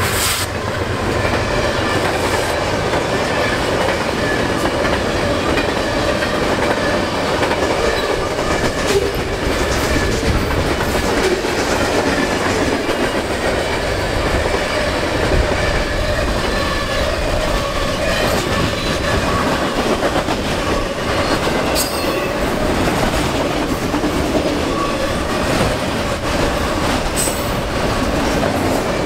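Freight cars of a CN train rolling past close by: a steady rumble and rattle of steel wheels on the rails, with scattered clacks at the rail joints and a thin steady whine underneath.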